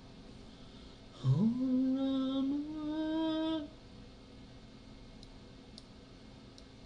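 A voice humming a wordless tone: it slides up from low, holds a note, then steps up to a slightly higher note and stops after about two and a half seconds. A few faint clicks follow near the end.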